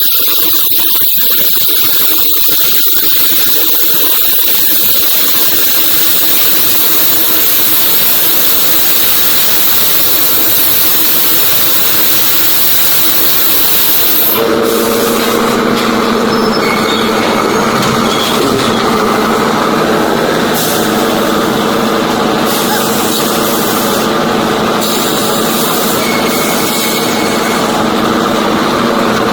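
Large sawmill machinery running loudly. A hissing, high noise gives way abruptly about halfway through to a steady machine hum with several pitched tones.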